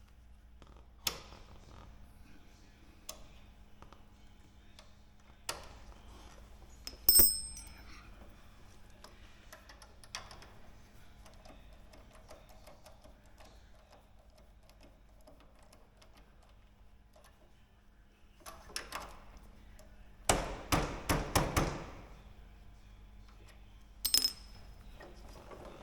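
Hand tools and metal parts clinking and knocking during hands-on work on an aircraft undercarriage. Scattered light clicks and handling knocks, two sharp ringing metallic clinks about seven seconds in and near the end, and a quick run of rattling clicks around twenty seconds in, over a low steady hum.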